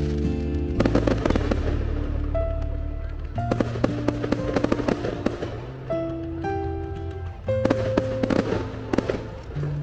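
Instrumental music with held chords that change every few seconds, each change marked by a run of sharp crackling hits, about a second in, around three and a half seconds in and around seven and a half seconds in.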